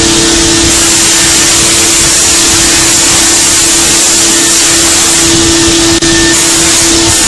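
A UGINT PT400S BT30 machining center cutting at high spindle speed: a loud, steady hiss with a steady tone over it. The tone stops shortly before the end, and there is a brief dip in level about six seconds in.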